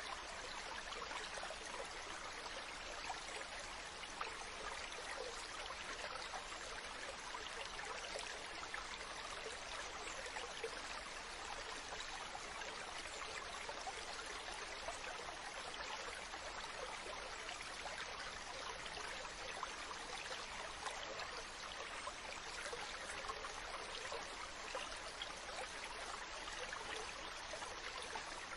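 Running water, a steady, unbroken flow with fine splashing.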